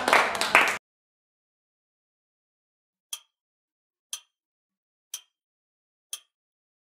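Several people's hands clapping, cutting off under a second in. After a pause, sharp ticks come once a second, four of them, starting about three seconds in, like a quiz timer's clock-tick effect.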